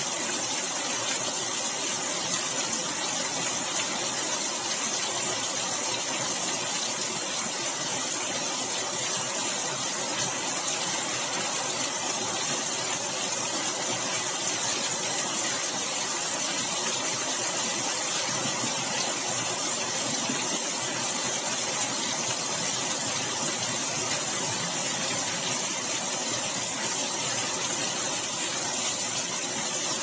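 Heavy storm rain pouring steadily, an even hiss that does not let up.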